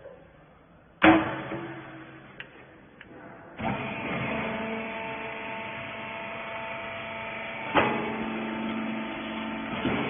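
A loud metal clank about a second in, as the wiper baler's lid is shut. About two and a half seconds later the baler's electric motor and hydraulic pump start and run with a steady hum and whine, broken by another clunk near the end.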